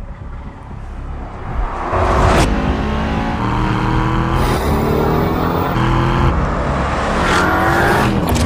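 Aston Martin DBX707's twin-turbo V8 accelerating hard: the engine note climbs in pitch several times over, dropping back between the climbs as at upshifts.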